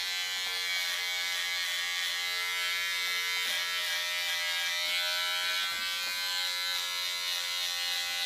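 Unix electric hair clipper running with its guard combs removed, the bare blade trimming hair around the ear. A steady, even buzz.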